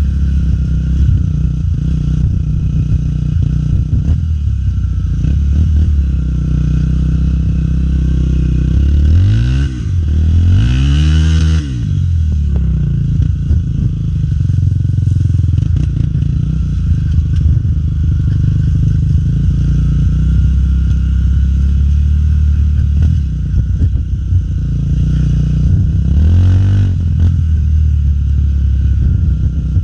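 Honda XR250 Tornado trail motorcycle's single-cylinder four-stroke engine running under way, with the revs rising and falling twice about ten seconds in and once more near the end.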